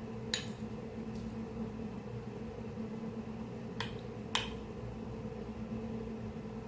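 A steady low electrical hum with four short, sharp clicks, the loudest about four and a half seconds in.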